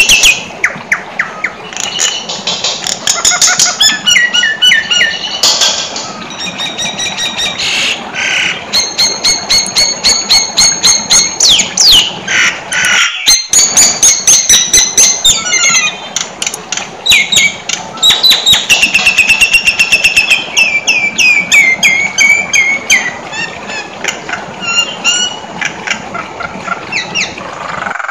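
Nias hill myna singing loudly and without let-up, a fast run of varied whistles, rapid trills and repeated sharp notes, with many pitch sweeps. It breaks off briefly about halfway through. This is the 'full isian' song of a bird in top form, packed with learned phrases.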